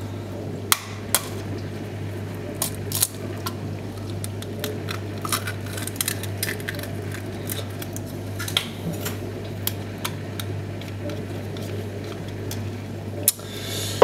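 Scattered clinks and knocks of jars, containers and a plastic cup being taken from and put back into an open fridge's shelves, over a steady low hum. The sharpest knock comes near the end.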